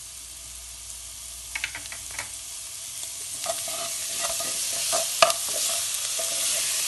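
Chicken pieces and onions frying in a nonstick pan with ginger-garlic paste just added. The sizzling grows louder from about three seconds in, while a spatula stirs through the pan with scattered clicks and scrapes, the sharpest a little past five seconds.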